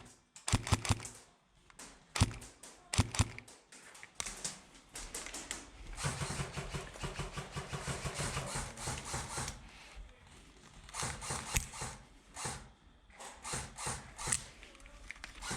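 Airsoft gunfire: strings of sharp, snapping shots in the first few seconds, then a stretch of dense rustling with rapid ticking from about six to ten seconds in, and more scattered sharp clicks after.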